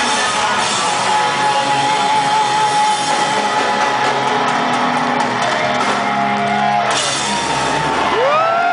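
Live rock band playing in a large hall, with loud electric guitar holding long sustained notes. Near the end the guitar pitch rises, holds and falls again.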